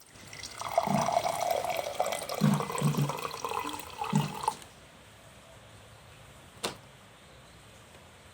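Water running and splashing for about four seconds, with a few low thuds in it, then stopping abruptly; a single sharp click follows a couple of seconds later.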